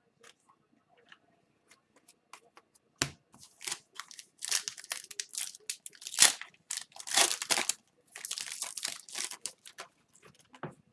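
Wrapper of a 2021-22 Upper Deck Series 1 hockey card pack crinkling and tearing as the pack is opened and handled. There are a few light clicks at first and a sharp click about three seconds in, then a dense stretch of crinkling.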